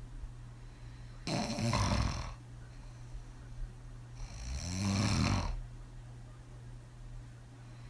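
A woman snoring hard on her back after several drinks: two heavy open-mouthed snores, each about a second long and roughly three seconds apart.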